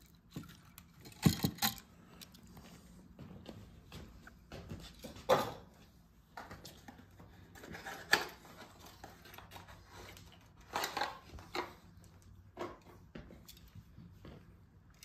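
Handling noise from a household light switch being worked loose from its wiring: scattered clicks, scrapes and rattles of plastic and metal as the terminal screws are loosened and the wire hooks are worked off.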